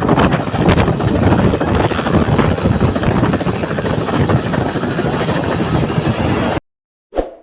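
Helicopter rotor and engine noise, loud and steady, cutting off abruptly about six and a half seconds in, followed by a brief sound near the end.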